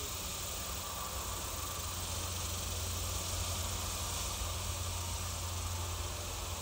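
Steady background hiss with a low, constant hum underneath; nothing starts or stops.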